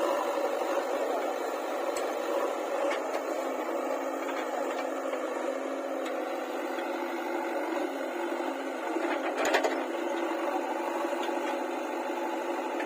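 A steady machine running, with a couple of sharp clicks, one about two seconds in and a louder one near the end.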